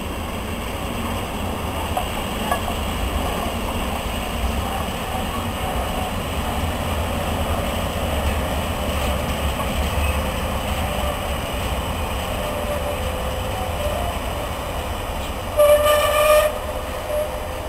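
DB class 363 (V60) diesel shunting locomotive moving slowly past, with a steady engine and running rumble. A brief train horn blast sounds near the end.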